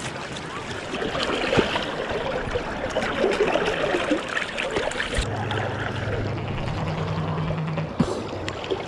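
River water splashing and sloshing as a freshly gutted salmon is rinsed by hand in the current, over the steady rush of the river. About five seconds in, a low steady hum joins.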